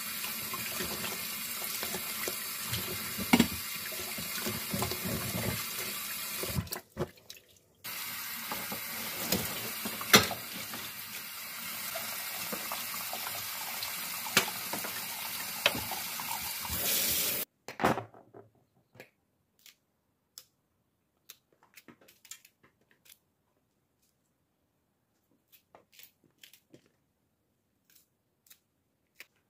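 Tap water running into a plastic basket in a stainless steel sink while carrots, peppers and then celery leaves are rinsed by hand, with a brief break about seven seconds in. The water stops about two-thirds of the way through, and scattered quiet clicks follow as thin green peppers are cut into short pieces with a small knife.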